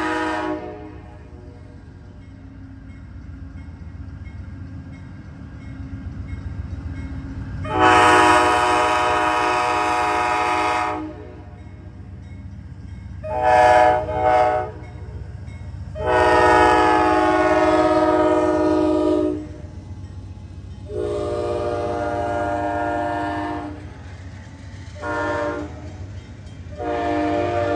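Nathan K5LA five-chime air horn on an Amtrak GE P42DC diesel locomotive, sounding a series of long and short blasts for a road crossing. Beneath it runs the low rumble of the locomotive and train rolling past.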